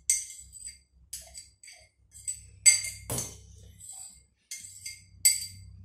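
Metal spoon clinking against a glass jar as wet instant snow is scooped out into a steel bowl: several sharp, ringing clinks at irregular intervals.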